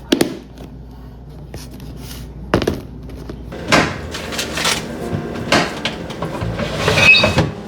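Groceries being put away in a fridge: a series of separate knocks and handling sounds as packages and containers are set on the shelves, with a short ringing clink near the end.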